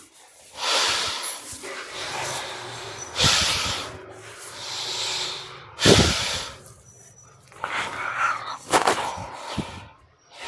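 Heavy breathing through the nose close to the microphone. There are a few long hissing breaths, and sharp, forceful snort-like exhales about three, six and nine seconds in.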